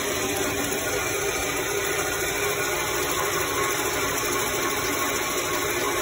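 Chamberlain B970 belt-drive DC garage door opener running, its trolley drawing the sectional door along the rail with a steady mechanical hum.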